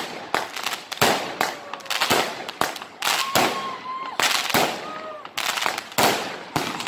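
Fireworks going off: many sharp bangs in quick, uneven succession as shells burst overhead.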